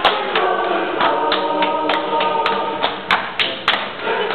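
Two women singing a hand-clapping rhyme together while clapping each other's palms, the sharp claps landing in a quick, uneven run among the sung words.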